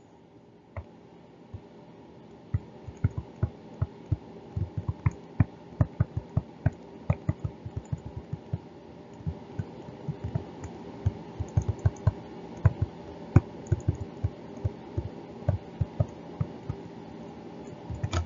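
A stylus tapping and clicking on a tablet screen during handwriting: a quick, irregular run of light taps over a low steady background hum.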